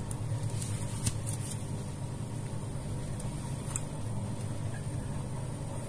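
Faint clicks and taps from a plastic cordless-tool battery pack being handled and opened, over a steady low background hum.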